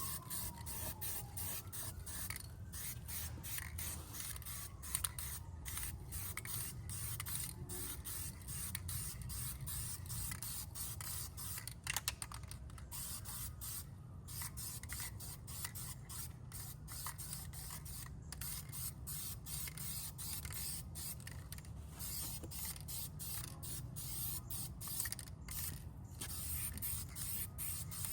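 Aerosol rattle can of sandable primer filler hissing as it is sprayed on, in passes broken by frequent brief pauses.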